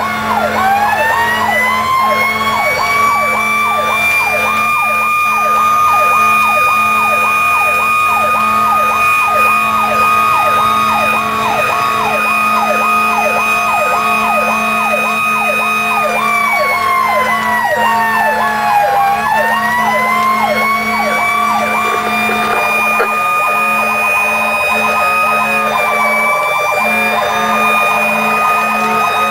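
Fire engine running with sirens on, heard from inside the cab: one siren yelps rapidly up and down about three times a second, while a second siren winds up to a steady high pitch, drops away around the middle, winds back up and dips briefly near the end.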